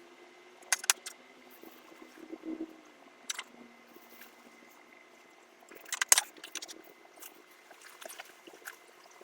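A few sharp clicks and clatters of hard objects being handled: a pair about a second in, one more a couple of seconds later, and the loudest cluster around six seconds, over a faint low hum.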